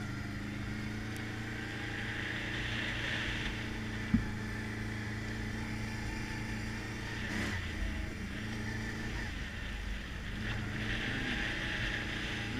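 ATV engine running at a steady, low speed while the machine rolls along a dirt trail, with a single sharp knock about four seconds in.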